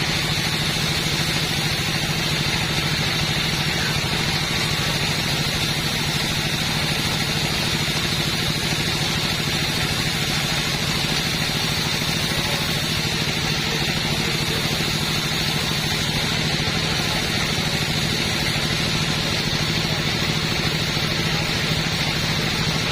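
Two-stroke chainsaw engine running at a steady, unchanging speed, with a constant high buzz over a lower drone and no revving up or down.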